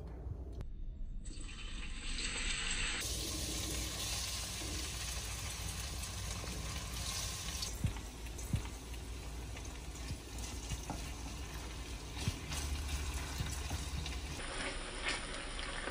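Kitchen cooking noise: a steady hiss like food frying in a pan or a tap running, with a few sharp knocks of utensils. The sound changes abruptly a few times.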